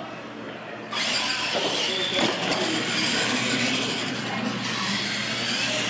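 Two R/C monster trucks launching off the start line about a second in and racing, their motors and geartrains running hard with tyre noise on a concrete floor.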